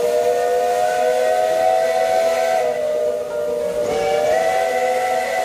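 Steam whistles of a steam roller and traction engine blowing a long held blast, two notes sounding together over a hiss of escaping steam. The notes shift about two and a half seconds in, dip briefly near four seconds, then sound again.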